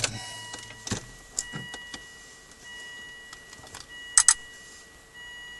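Volvo electronic throttle module's motor whining thinly in on-off spells of about a second, with a few clicks; a close pair of sharp clicks about four seconds in is the loudest thing.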